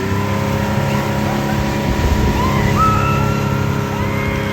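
Motorboat engine running steadily at speed while towing a tube, holding an even pitch, with a few short high-pitched sounds over it.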